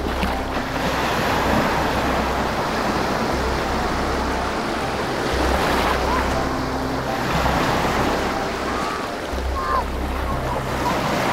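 Ocean waves breaking and washing up the beach, surging and easing about every three to four seconds, with wind rumbling on the microphone.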